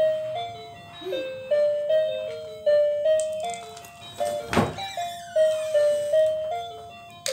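A simple electronic melody of single clear notes stepping up and down, like a toy or ice-cream-van jingle. A short thump about four and a half seconds in.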